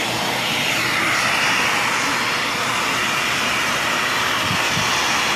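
Dyson Cinetic Big Ball vacuum cleaner running, a steady high rush of suction through its hose and pet grooming tool as the tool is worked through a dog's coat.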